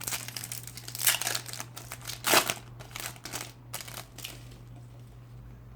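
Foil trading-card packet crinkling as it is handled and torn open: about five short rustles in the first four and a half seconds, then quieter handling. A steady low electrical hum runs underneath.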